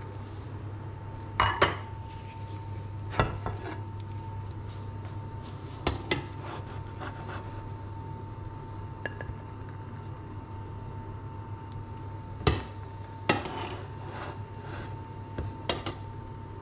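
Cooked rice being scooped out of a pot with a silicone serving spoon: a handful of short knocks and scrapes of the spoon against the pot, spaced a few seconds apart, over a steady low hum.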